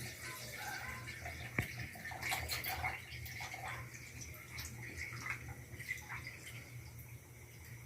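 Milk being poured into a blender jar, a steady liquid pour with a few light clicks, easing off after about three seconds.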